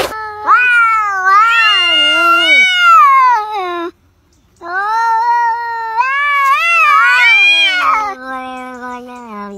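Cat meowing: two long, drawn-out, wavering meows with a short pause between them, then a lower, steadier call sliding down in pitch near the end.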